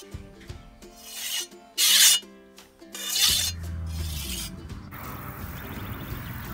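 Scythe blade being honed with a whetstone: three short rasping strokes, the second the loudest. A steady rushing noise follows from about five seconds in.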